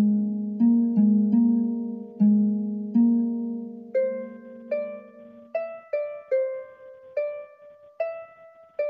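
Background music: a slow melody of single notes, each starting sharply and fading out, moving up to higher notes about four seconds in.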